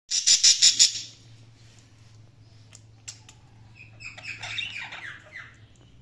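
Budgerigars calling: a loud run of about six quick calls in the first second, then scattered short calls and a stretch of warbling chatter about four seconds in.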